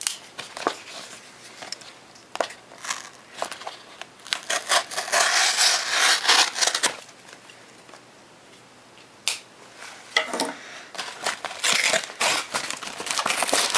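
A package being cut open with a Spyderco Manix 2 folding knife and its packaging rubbed and crinkled, in scratchy bursts with a quieter pause about halfway through.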